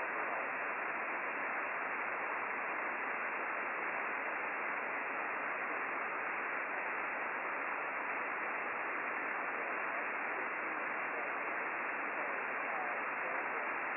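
Steady receiver hiss from an Icom IC-9700 transceiver tuned in upper sideband to the RS-44 satellite's 435 MHz downlink, with no clear signal coming through.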